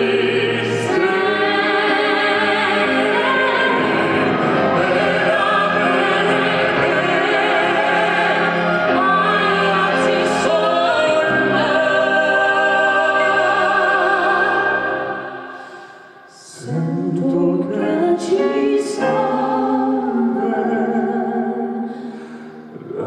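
Male and female voices singing in operatic style over instrumental accompaniment, holding long notes with vibrato at the song's close. About fifteen seconds in the music fades away, then the accompaniment comes back in, with another brief dip near the end.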